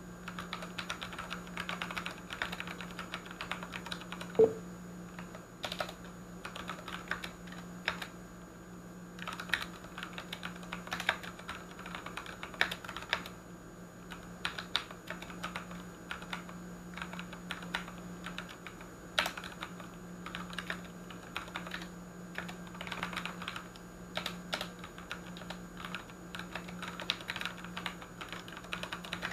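Typing on a Ducky One 2 mechanical keyboard with tactile, non-clicky Cherry MX Brown switches: a quick, uneven run of key clacks with brief pauses, and one louder key strike about four seconds in. A low steady hum runs underneath.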